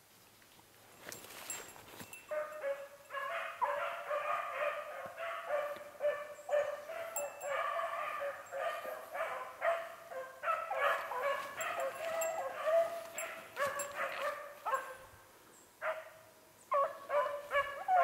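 A pack of beagles baying while running a rabbit, several hounds' cries overlapping in quick repeated bursts. The chorus starts about two seconds in, drops away briefly near the end, then picks up again.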